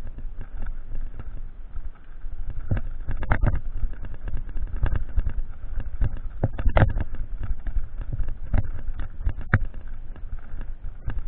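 Mountain bike rattling and clattering over rough trail: irregular sharp knocks, thickest about three seconds in, near the middle and near the end, over a steady low rumble of wind on the microphone.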